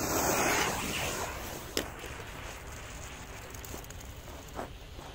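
Lit fuse of a Big Jumbo firecracker sputtering and hissing for about a second, then a single sharp knock as the firecracker lands on the ice, followed by faint wind.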